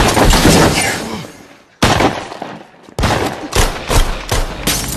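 Gunfire in a street shootout. A loud volley opens it and rings off, another hits a little before two seconds in, then a rapid string of shots starts about three seconds in.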